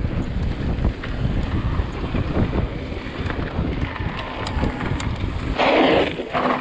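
Wind buffeting the microphone of a handlebar-mounted camera on a mountain bike riding a dirt trail, a steady low rumble with the tyres' rolling noise. A brief louder burst of noise comes near the end.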